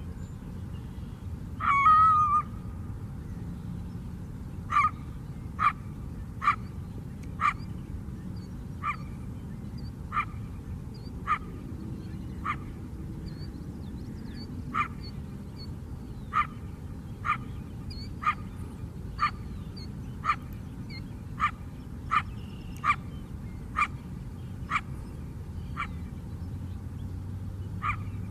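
A coyote barking. About two seconds in comes a brief, drawn-out higher call, the loudest sound. From about five seconds on it gives a long series of single short barks, roughly one a second, over a steady low background rumble.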